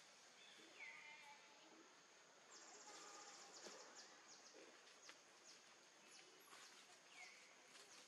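Faint outdoor ambience: insects drone steadily on a high note, with a rapid buzzing trill about a third of the way in. Two short high chirps that bend downward come near the start and again near the end.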